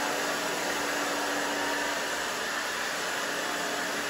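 Hand-held hair dryer blowing on hair, a steady rushing hiss with a constant low hum from its motor.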